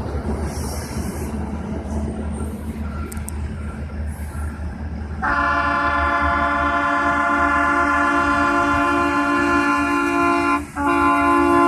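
Rail equipment rumbling, then about five seconds in a multi-note air horn starts and holds a steady chord, with one brief break near the end.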